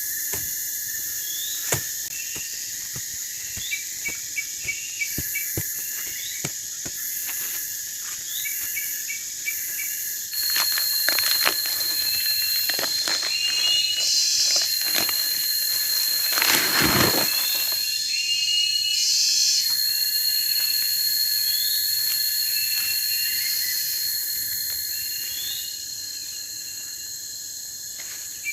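Night insect chorus of crickets and other insects trilling steadily. About ten seconds in, a second high, steady insect tone joins and holds for about fifteen seconds. Short chirps recur every second or two, with scattered light ticks.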